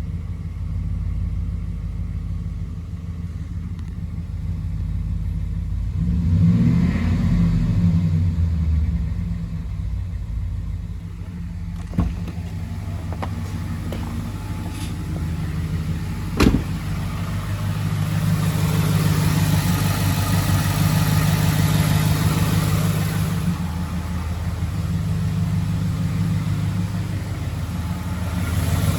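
Ford F-150's 5.0-litre V8 running, revved up and back down once early on, then running louder in the second half. There are two sharp clicks along the way. The owner takes the engine's noise for rod knock.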